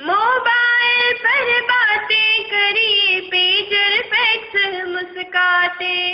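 One voice singing a Hindi poem to a tune in a single long phrase, holding notes and sliding between them, with a rising glide into the first note.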